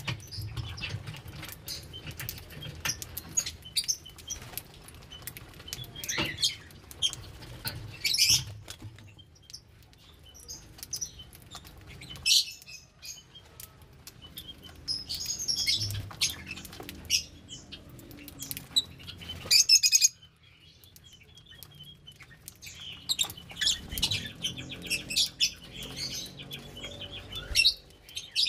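A group of lovebirds chirping in short, high calls among many sharp clicks. The calling stops for a few seconds about two-thirds of the way through, then starts again.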